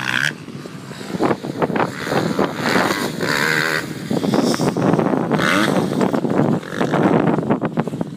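Motocross bikes' engines revving as they ride the dirt track, with gusts of wind buffeting the microphone.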